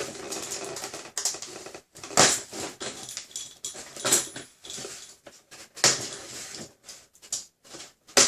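Unboxing handling noise: plastic target pieces and their packaging being handled, giving irregular rustling and clacks. Several sharper knocks come about two, four, six and eight seconds in.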